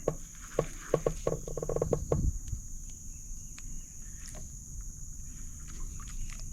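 Insects chirring steadily at a high pitch. A quick run of light clicks and knocks comes in the first two seconds.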